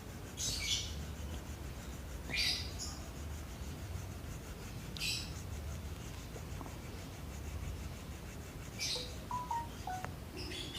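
Sandpaper rubbed over a coconut shell, five short scraping strokes a few seconds apart, smoothing a crack that has been filled with glue and coffee grounds. A low steady hum underneath.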